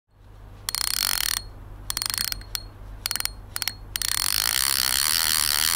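Fishing reel's drag clicking in rapid bursts as line is pulled off. About four seconds in it becomes one continuous run: a fish taking line against the drag.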